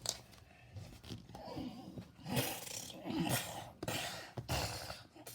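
A person's voice making several short non-word noises, coming and going in separate spurts.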